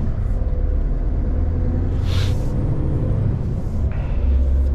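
Scania truck's diesel engine and drivetrain heard from inside the cab while driving, a steady low rumble. A short hiss comes about two seconds in.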